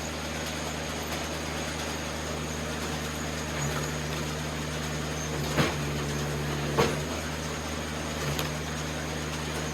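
Eastonmade 37D wood splitter running steadily, its engine note growing fuller about three and a half seconds in. Two sharp cracks of wood come near the middle, a little over a second apart, as poplar rounds are split.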